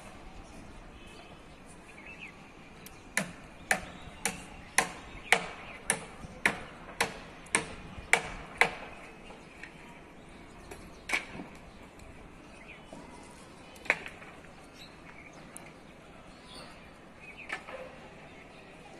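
A run of about eleven sharp knocks, evenly spaced at about two a second, followed by three more single knocks a few seconds apart, over a faint steady background.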